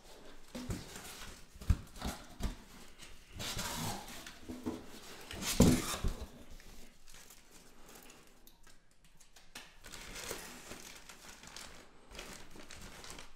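Unpacking noises from a cardboard box: cardboard flaps and packing knocked and scraped, and plastic bags around the accessories crinkling. A few knocks in the first couple of seconds, the loudest rustle about five and a half seconds in, then quieter rustling.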